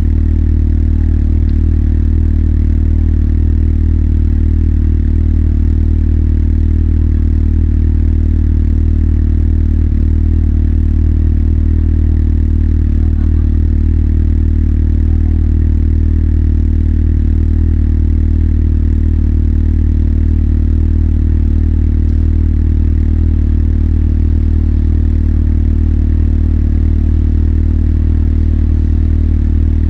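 Motorcycle engine running steadily at one unchanging low pitch, with no revving.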